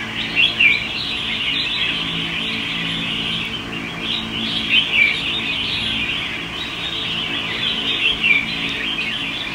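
Caged red-whiskered bulbuls chirping and singing in a dense, continuous chorus, with three louder sweeping phrases standing out: about half a second in, near the middle and near the end. A steady low hum runs underneath.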